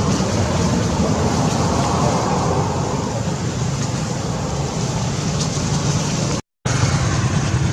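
Steady low rumbling background noise, cut off completely for a moment about six and a half seconds in.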